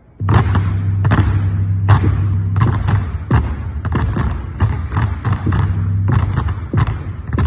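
Many basketballs dribbled together on a hardwood gym floor, a run of heavy thuds at about two to three a second, often in quick pairs, that starts suddenly. The thuds echo in the large hall, over a steady low hum.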